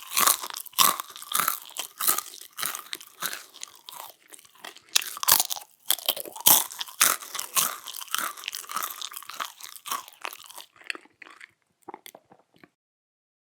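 A person chewing a crunchy, dry waffle close to the microphone: rapid, irregular crunches several times a second. The crunching thins to a few last crunches and stops near the end.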